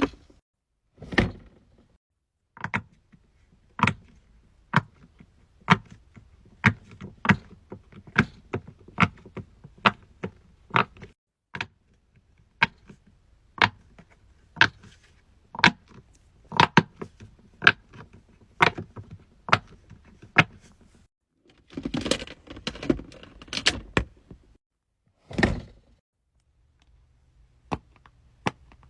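Fidget toys being handled: a series of sharp clicks and taps, about one a second, with a burst of denser crinkly rustling about two-thirds of the way through.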